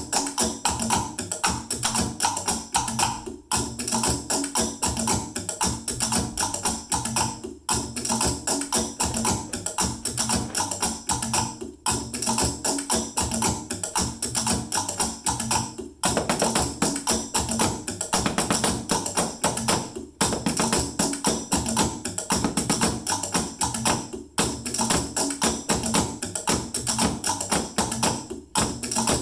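A percussion groove tapped with sticks on everyday household items such as plastic containers, dense steady clicking and tapping with a bright jingling edge, the pattern repeating about every four seconds.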